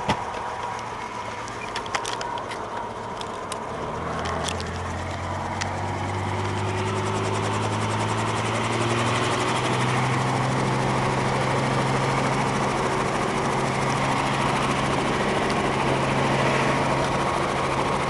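Helicopter engine and rotor speeding up, the hum rising in pitch and growing louder for several seconds before settling into a steady run. A few sharp clicks come in the first few seconds.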